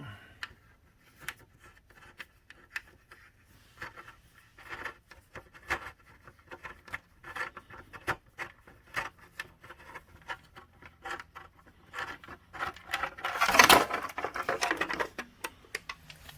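Plastic motorcycle fairing panels and their fasteners being worked off the bike by hand: scattered clicks, taps and light rubbing, with a longer, louder stretch of scraping and rustling about three-quarters of the way through.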